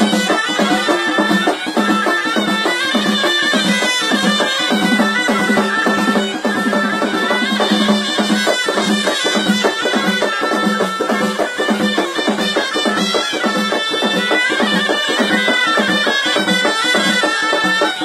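Background music: traditional folk music with a wind-instrument melody over a steady drum beat.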